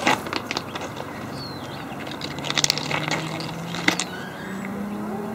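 A distant engine, steady and slowly rising in pitch from about halfway through, over outdoor background noise with scattered sharp clicks and a few short high chirps.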